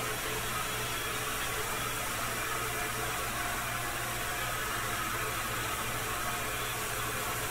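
Tormach PCNC 1100 CNC mill cutting aluminium with a small end mill: a steady hiss with a faint low hum and faint steady tones.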